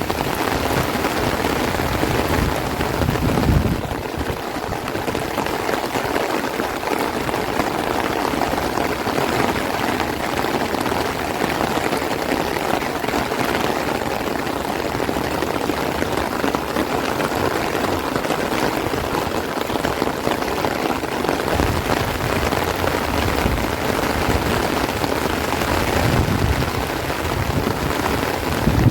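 Heavy rain falling steadily on rice plants and trees, a dense even hiss. Gusts of strong wind add a low rumble on the microphone for the first few seconds and again from about two-thirds of the way through.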